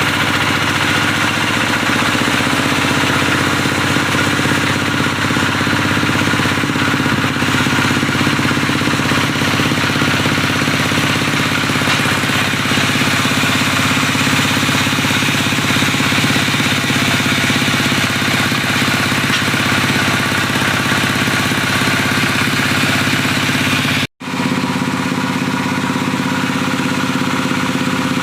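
Diesel engine of a wood-sawing machine running steadily. About 24 s in, the sound drops out for a moment and comes back with a slightly different pitch.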